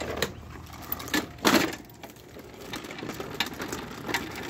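Walk-behind push mower being pushed over concrete, its wheels and deck rattling and clattering, with a louder clatter about a second and a half in.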